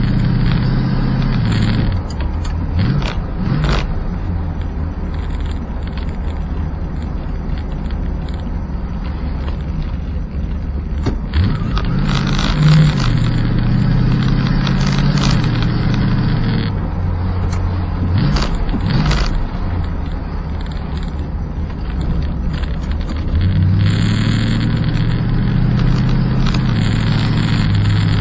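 Plymouth Volaré driving on the road: its engine note rises and falls several times as the car speeds up and shifts, over steady road noise, with a few short knocks along the way.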